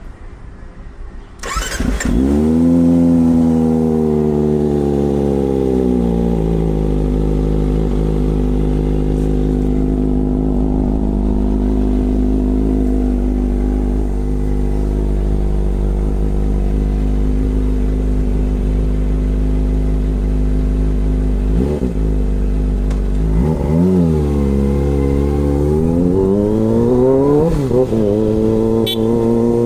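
Kawasaki ZX-25R's 249 cc inline-four engine starting about a second and a half in. It runs fast at first, then settles over a few seconds to a steady idle. Near the end it takes a few quick throttle blips, each rising and falling in pitch.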